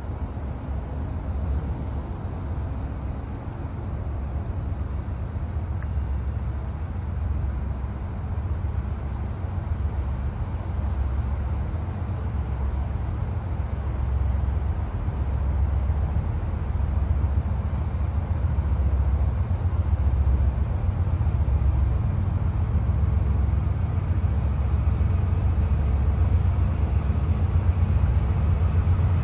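Diesel freight locomotive approaching slowly, a low engine rumble growing gradually louder.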